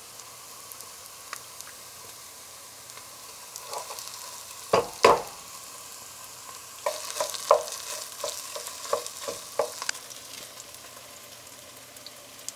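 Diced onion and tomato paste sizzling in oil in a pot, with a wooden spoon knocking and scraping against the pot as the paste is stirred in: two loud knocks about five seconds in, then a run of lighter taps.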